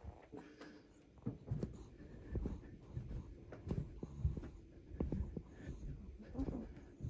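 Long-coat Chihuahua making small nasal snuffles, the 'kupi' sounds of a dog just woken, a soft one every half second to a second, right at the microphone with fur brushing against it.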